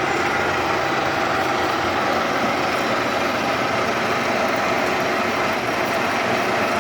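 Lathe running with a steady, even machine noise that holds at one level.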